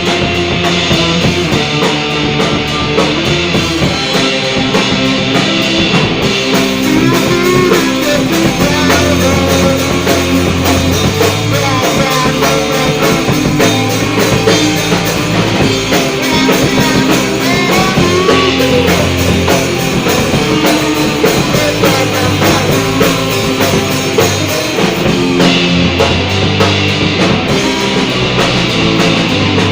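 Rock music played by a band, with guitars and a drum kit driving steadily throughout.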